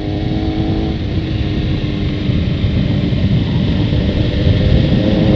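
Suzuki GSX-R sport bike's engine under way, heard through a helmet-mounted microphone with the chin skirt out, under heavy wind rush. The engine pitch falls during the first second as the bike slows, then climbs again near the end as it accelerates.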